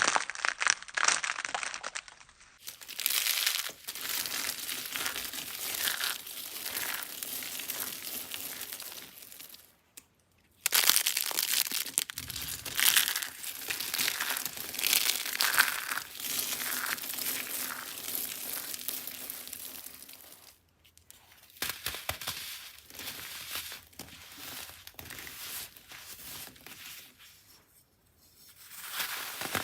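Dry soap being crushed and crumbled, a dense crunchy crackling that goes on in long runs and stops briefly about ten seconds in and again about twenty-one seconds in.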